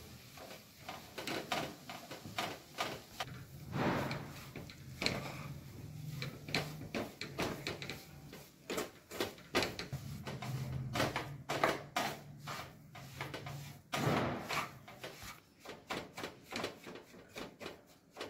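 Wooden spatula scraping and pressing roasted gram flour and mawa around a non-stick kadhai, a run of uneven scrapes and knocks, one or two a second.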